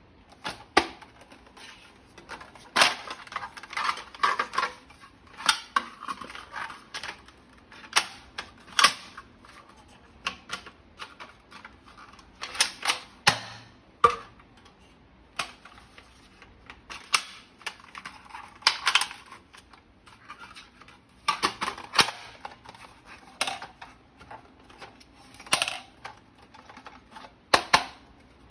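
Hard plastic toy-gun parts being handled: irregular sharp clicks and clattering knocks, some single and some in quick clusters.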